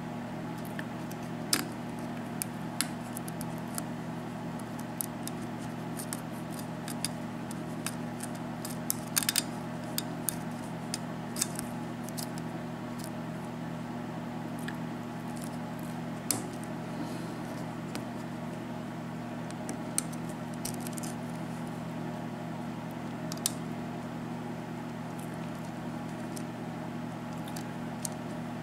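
Lock pick and tension wrench working the pins of a Russwin mortise lock cylinder fitted with serrated pins: irregular small metallic clicks and scrapes, more frequent in the first half, with a quick cluster about nine seconds in. A steady low hum runs underneath.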